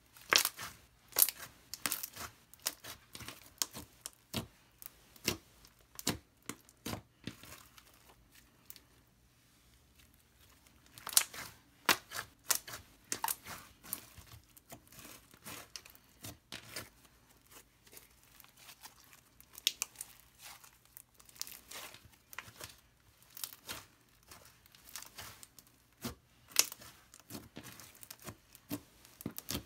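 Glossy slime being stretched, squeezed and folded by hand, giving irregular sticky clicks and pops, with a quieter pause about a third of the way in.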